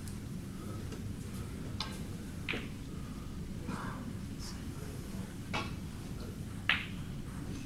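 A few sharp clicks of snooker balls knocking together, the loudest about two-thirds of the way through, over a low steady hum of the hall.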